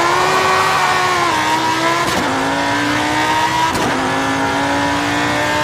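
Race car engine running at high revs: one steady high engine note that sags slowly in pitch, with brief dips about two and four seconds in.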